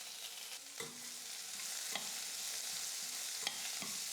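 Chopped onions and curry leaves sizzling in hot oil in a kadai as they are sautéed, with a steady hiss and a few sharp clicks and scrapes of a spoon against the pan as they are stirred.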